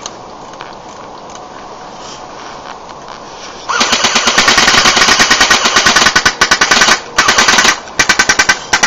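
CO2-powered BB gun firing full-auto in rapid strings of shots, starting a little under four seconds in and breaking off briefly twice; the shooter is emptying its low CO2 supply. Before the firing, only a faint steady hiss.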